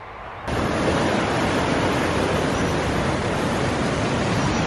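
Rushing white water of Skelwith Falls, a steady loud roar of water pouring over rock, starting abruptly about half a second in.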